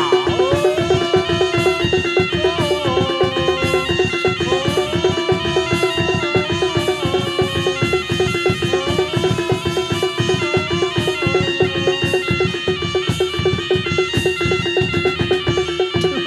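Live reog troupe music: a wavering, bending reed-pipe melody over a steady held tone and fast, dense drumming.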